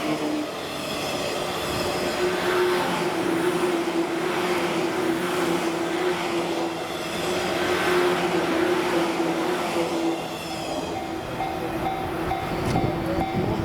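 A 185 series electric train running past over the level crossing, its wheels rumbling over the rail joints in swells about every two seconds. A steady ringing tone runs under it, which changes to a pulsed tone near the end: the crossing's warning alarm.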